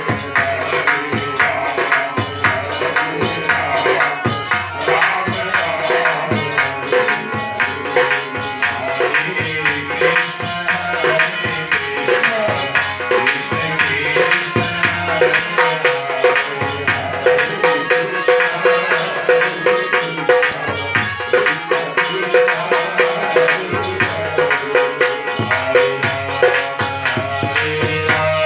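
Devotional kirtan music: jangling wooden kartal clappers with metal jingles keep a steady beat of about three strokes a second over a harmonium's held notes and a hand drum.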